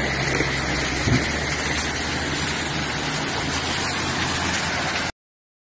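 Heavy truck's diesel engine running under load in deep mud, with a steady noisy wash over it and a short thump about a second in; the sound cuts off abruptly about five seconds in.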